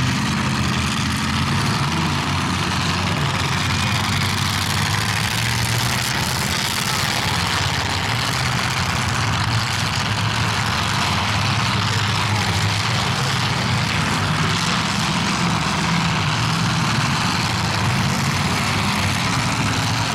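Demolition derby car engines running in the arena, a steady low drone with a hiss of noise over it.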